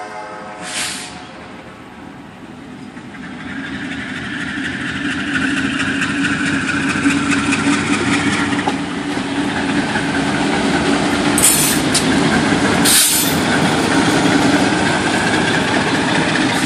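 Diesel locomotive of a freight train approaching and rolling by, its engine drone and the rumble of wheels on rail growing steadily louder over the first several seconds. Later on come a few brief high-pitched hisses and a single sharp clank.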